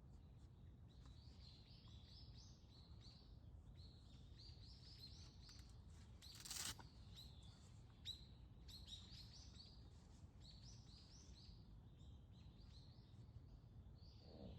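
A small songbird sings several short phrases of quick high notes, each phrase stepping upward in pitch, over a faint steady low rumble of outdoor background noise. About halfway through comes a brief burst of noise.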